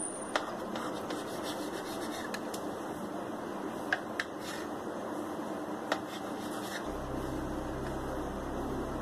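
Kitchen knife cutting through a soft sponge cake and scraping against the ceramic plate beneath it, with a few sharp clicks, over a steady background hiss. A low hum comes in near the end.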